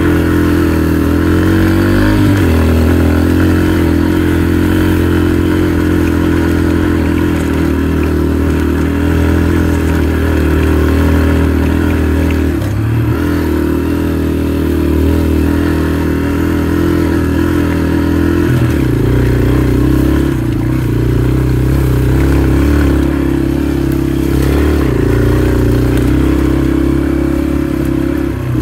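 Dirt bike engine running steadily while riding a trail, its pitch changing a few times as the throttle is worked.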